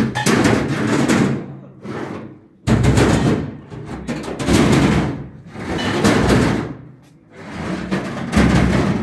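Background music in loud swelling phrases, with a few sudden hits.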